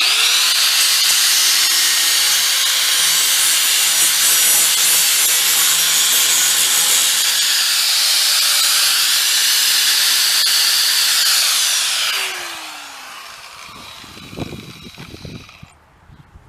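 Angle grinder spinning up and grinding steel, a loud, steady, high-pitched grinding that runs for about twelve seconds. It is then switched off and winds down with a falling whine.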